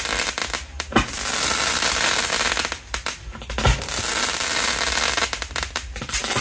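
A long string of firecrackers going off in dense, rapid crackling, with a few sharper, louder bangs, one about a second in and one past the middle.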